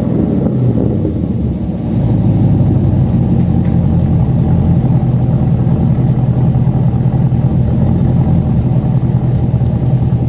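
Chevrolet Camaro SS 6.2-litre V8 running through SLP long-tube headers and a full 3-inch SLP Loudmouth exhaust, with a steady deep rumble that gets a little louder about two seconds in.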